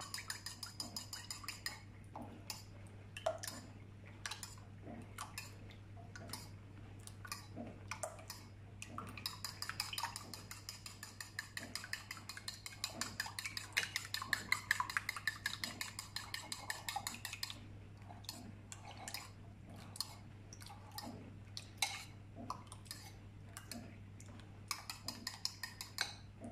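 A metal utensil beating eggs and milk in a ceramic bowl, clicking against the bowl's sides with each stroke. The strokes come quick and dense from about nine to seventeen seconds in, and slower and more scattered before and after.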